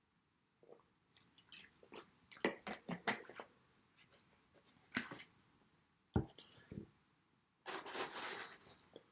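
Close-up handling and eating noises: a plastic water bottle crackling and clicking as it is drunk from and capped, a thud just after six seconds as it is set down, then a rustling scrape as a pizza slice is pulled apart on its cardboard box.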